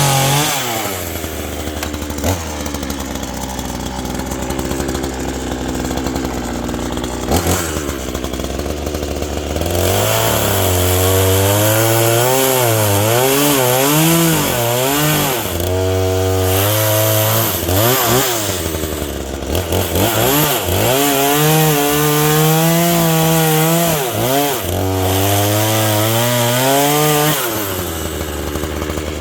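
Chainsaw cutting an oak slab: it idles steadily for the first several seconds, then is revved and works through the cut with its engine speed rising and falling again and again, settling back to idle near the end.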